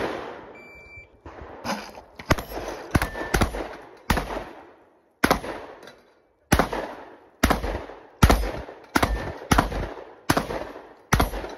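A string of about fifteen shotgun shots from a custom Beretta 1301 semi-automatic 12-gauge, fired in quick bursts of two to four shots with short pauses between. A short electronic beep sounds about half a second in.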